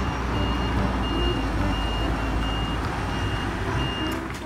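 Large city bus engine running as the bus turns, under a steady low traffic rumble, with a high electronic warning beep repeating evenly about every three-quarters of a second.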